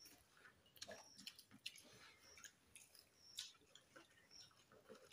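Faint eating sounds: chewing and fingers working rice and fried fish on plates, with scattered soft clicks and squishes. A faint short high tone recurs about once a second.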